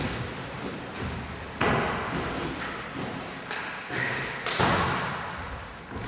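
Bodies landing on gym mats as one martial artist throws the other down and pins them: a sharp thud about a second and a half in, then a few softer thumps around four seconds in.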